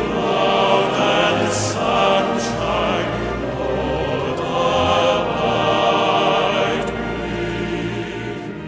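Slow vocal music with a choir of voices singing sustained notes, starting to fade out near the end.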